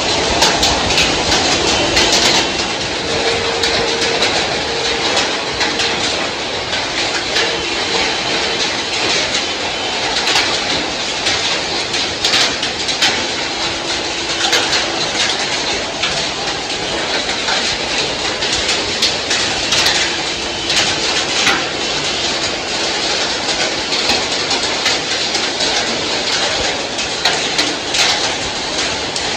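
Heavy rain and hail pelting a wet road: a dense, steady hiss of downpour with many sharp ticks of hailstones striking.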